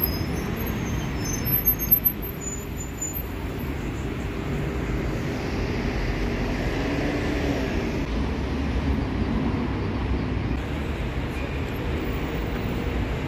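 Steady city traffic noise, a low rumble of passing cars and buses, with a brief louder burst about two seconds in.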